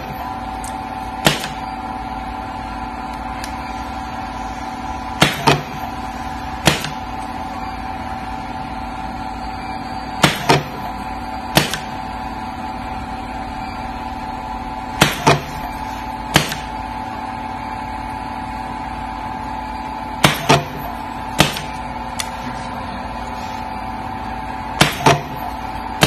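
Benchtop terminal crimping machine humming steadily while its press cycles, crimping contacts onto flat flexible cable. Each cycle gives a quick double clack followed about a second later by a single clack, repeating roughly every five seconds.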